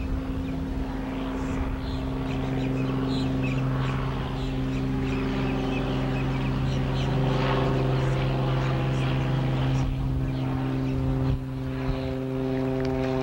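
Steady engine drone made of several held tones, with a slight change in pitch about eleven seconds in.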